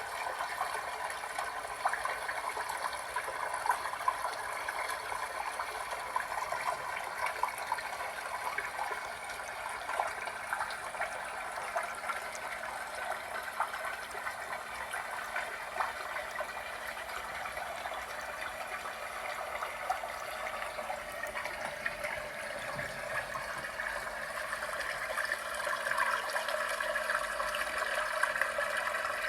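Small tabletop waterfall fountain: water trickling and splashing steadily, with many small drips and splashes.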